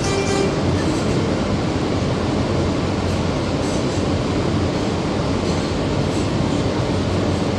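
Steady running noise of an R160B subway train with Siemens propulsion, heard from inside the car as its wheels rumble along the rails. There is a short squeal right at the start.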